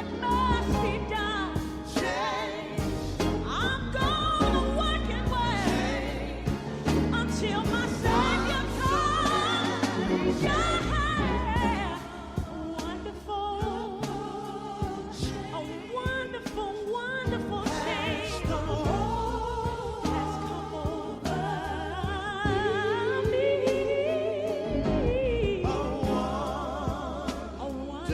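Gospel song: sung vocals with heavy vibrato and sliding runs over instrumental backing with a deep bass line and a regular drum beat.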